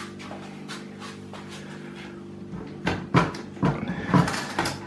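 Hard plastic knocks and clicks as the Genesis DuraVac wet & dry vacuum cleaner's canister is opened and its parts handled. A few sharp knocks come in the second half, over a steady low hum.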